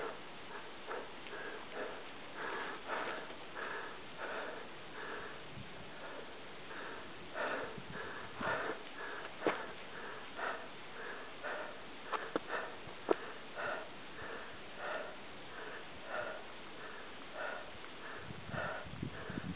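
A person breathing hard and fast close to the microphone, a steady run of in-and-out breaths, winded from a steep climb. A few sharp clicks from the camera being handled come in the middle.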